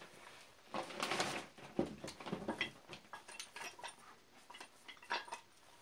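Old cast-iron bench vise being handled and shifted on a table: a string of scattered metal knocks and scrapes, busiest about a second in.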